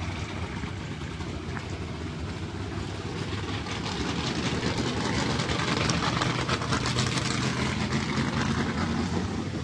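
A vehicle engine running steadily with a low, pulsing drone. It gets louder about three seconds in and eases off near the end.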